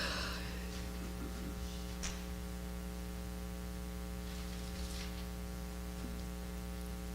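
Steady electrical mains hum with faint room hiss, and a single small click about two seconds in.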